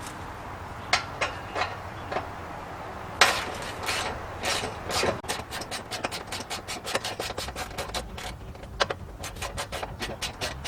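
Hand socket ratchet clicking as slider mounting bolts are run into the frame: a few scattered knocks and scrapes, then from about five seconds in a quick, even run of ratchet clicks, several a second.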